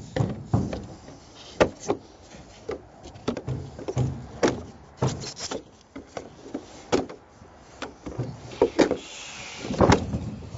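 Hand snips cutting through the plastic webs of an expanded-polystyrene ICF block: a series of sharp, irregular snaps and clicks.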